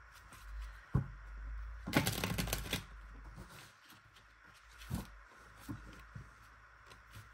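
A deck of cards being shuffled by hand: a single snap about a second in, a quick run of flicking cards about two seconds in, then a few soft taps.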